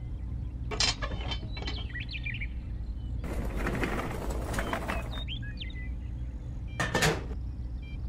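Small clicks and rattles of a toy trailer's wire hook being unhitched from a model tractor's coupling, with a rustle of about two seconds in the middle and a few bird chirps over a steady low hum.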